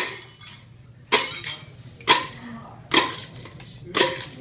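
Light bulbs being smashed with a wooden stick inside a plastic bucket: sharp glass-breaking strikes with crunching and clinking, about once a second, five in all.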